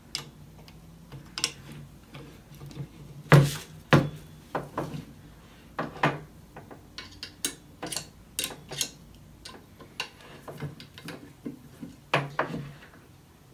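Irregular metallic clicks and clinks of an Allen wrench turning screws into a metal monitor mount bracket as they are cranked down, with two louder knocks about three and a half and four seconds in.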